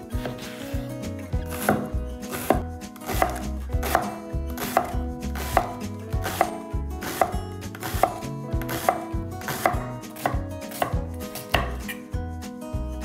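Kitchen knife chopping food on a cutting board in a steady rhythm, a little more than one stroke a second.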